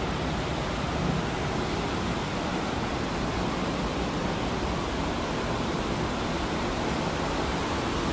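Steady rush of running water from an underground cave stream and its waterfalls.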